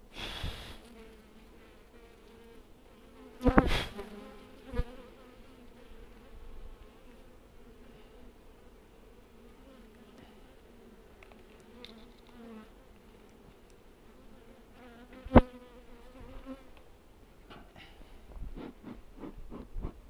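Honeybees buzzing around an opened hive, a steady hum. Several sharp knocks cut through it, the loudest about three and a half seconds in and another about fifteen seconds in, with a run of quick clicks near the end.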